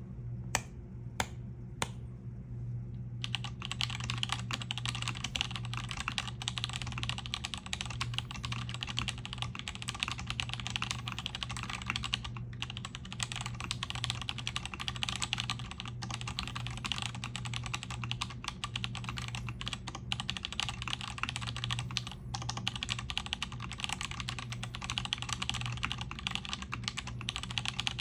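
Mechanical keyboard typing on vintage Cherry MX Black linear switches lubed with RO-59, in an aluminium-plated OTD 356CL case with PBT DCS keycaps. A few single keystrokes come first, then fast, continuous typing from about three seconds in.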